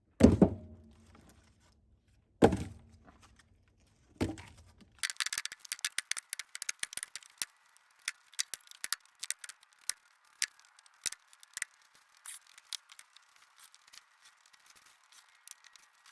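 Three heavy thuds of cut firewood pieces landing, about two seconds apart, followed by a long run of quick, light knocks and clicks with little low end to them.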